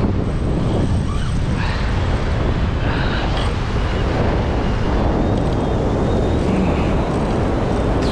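Strong wind buffeting the microphone, with rough sea surging and breaking against the rocks beneath it.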